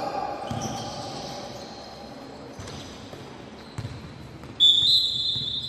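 A basketball bouncing on the hard gym floor, a few scattered thuds in a reverberant hall, then a referee's whistle blown sharply about three quarters of the way in: one loud shrill blast of about a second.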